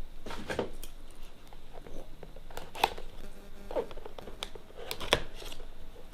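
Packaging being handled and pulled off a keyboard: crinkling, tearing rustles with a few sharp clicks, the loudest about 3 seconds in and again about 5 seconds in.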